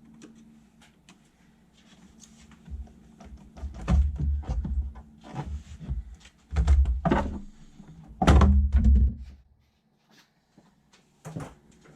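Plastic intake air duct and hose being worked loose by hand from the engine: hollow knocks, thuds and rubbing in three loud bouts, stopping about ten seconds in.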